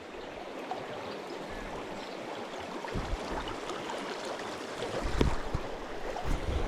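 Small river flowing steadily over its bed, with a few low dull bumps about halfway through and near the end.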